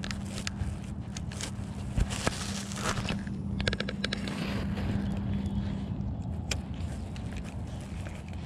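Steady low hum of an electric trolling motor on a bass boat, which stops about six seconds in. Under it are scattered clicks and rattles of a spinning rod and reel being cast and retrieved.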